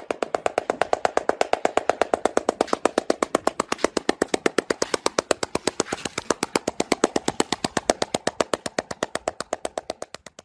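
A seal patting its belly with a fore-flipper, a fast, even drum-like patter of slaps at about eight a second.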